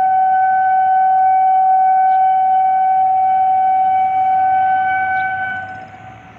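Indian Railways locomotive horn sounding one long, steady single-pitched blast that drops away near the end.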